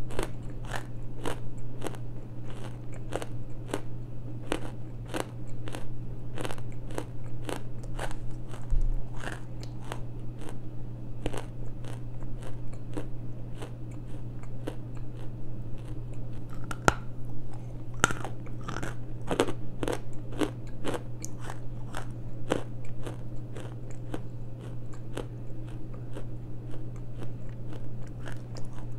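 Close-miked chewing of a mouthful of Elephant clay, a granular, medium-hard Indian eating clay, crunching between the teeth in a steady rhythm of a little under two crunches a second.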